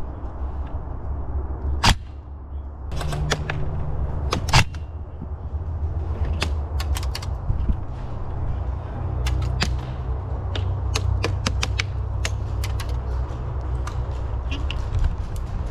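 Airsoft rifle shots: a sharp crack about two seconds in, a quick cluster of cracks between three and four and a half seconds, then many lighter clicks and pops scattered through the rest, over a steady low rumble.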